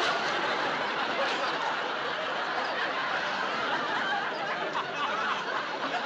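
Studio audience laughing, a steady spell of many people laughing together.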